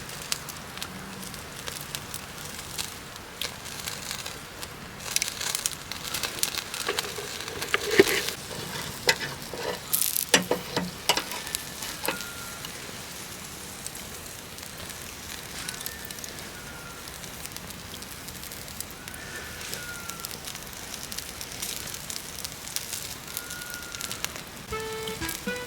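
Wood campfire crackling and popping under a steady sizzling hiss, as skewered beef sirloin grills over the flames. The sharp pops come thickest in the first half and thin out later.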